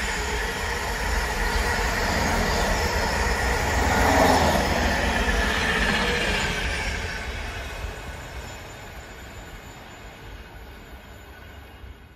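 Container freight train's wagons rolling past on the rails: a dense rumble with a steady high ringing from the wheels. It is loudest about four seconds in and dies away once the last wagon goes by, about seven seconds in.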